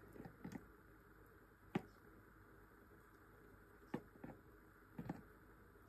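Quiet handling of a plastic brush-cleaner housing and a small glass jar with a plastic lid: about half a dozen light taps and knocks, the clearest a little under two seconds in and two more near the end.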